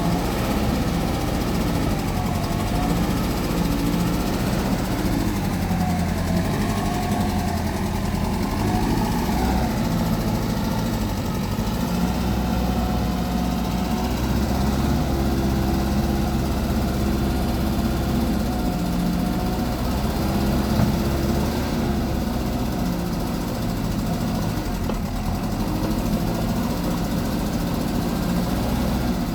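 2006 JCB 3CX backhoe loader's diesel engine running steadily, with a fainter whine that wavers up and down in pitch over it.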